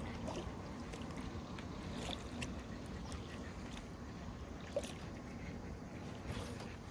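Low steady rumble of a canoe sitting on the water, with scattered small clicks and knocks, one sharper knock about five seconds in.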